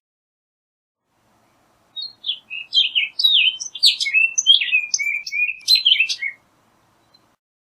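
Orchard oriole singing: one rapid, jumbled phrase of varied whistled and slurred notes, starting about two seconds in and lasting about four seconds.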